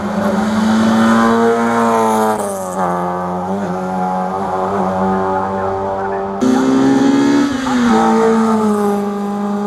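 Rally car engine at full throttle, revs climbing and dropping through several gear changes, with a sudden jump in loudness about six seconds in.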